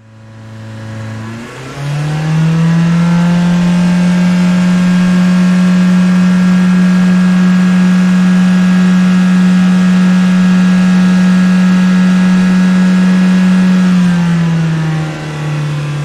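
Car engine running: it fades in, rises in pitch as the car picks up speed about two seconds in, holds a steady drone, then eases down in pitch near the end.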